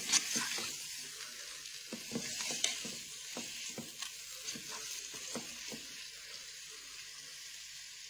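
Floured chunks of stew meat sizzling in hot oil and onion as they brown in a multicooker's pot. A utensil stirs them, scraping and knocking against the pot at irregular intervals, and the strokes thin out over the last couple of seconds.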